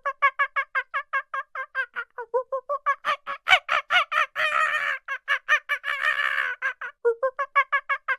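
An animal calling in a fast run of short, pitched notes, about six or seven a second, turning harsher and rougher for two stretches in the middle.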